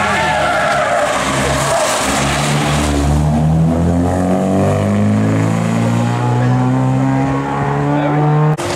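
A historic rally car's engine at full throttle as it accelerates past, the note climbing and dropping back at each upshift through the gears, with a hiss of tyre noise in the first few seconds. The engine sound cuts off abruptly near the end.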